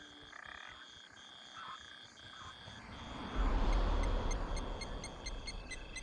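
Night chorus of frogs: a high, steady trill broken into long pulses with short gaps, joined about four seconds in by quick ticking calls, about four a second. A low rumble comes in a little after three seconds and is the loudest part.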